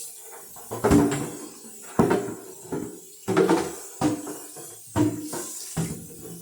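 A refrigerator shelf knocking and clattering against the sink as it is rinsed and turned around, about one knock a second, each followed by a brief ringing tone.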